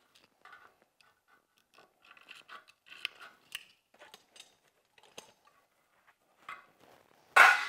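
Hand tin snips cutting through a sheet-metal window trim piece to remove its corner: scattered short snips and clicks, then one louder burst of noise near the end.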